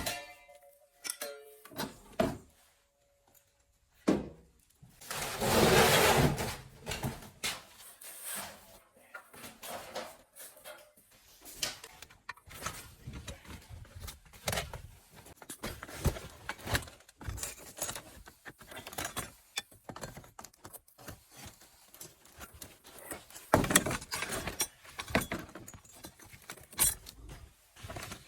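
Irregular knocks, clicks and clatter of objects being handled, with a longer rustling, scraping burst about five seconds in and another loud clatter near the end.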